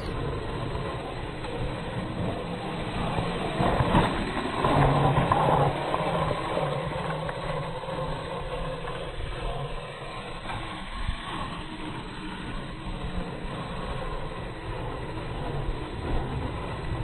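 Radio-controlled SCX10 rock crawler driving on a trail, its electric motor and gears running steadily, louder for a couple of seconds about four seconds in.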